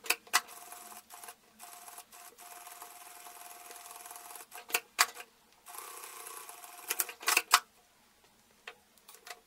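Sewing machine stitching a seam through quilted cotton, running in short spurts with a steady hum that stops and restarts several times. Sharp clacks come between the runs, and a few more near the end after the machine has stopped.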